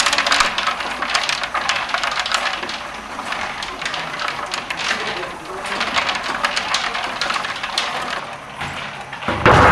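Rapid, uneven clattering and knocking from a wooden ball-throwing machine, its wooden parts and tennis balls rattling as it is worked.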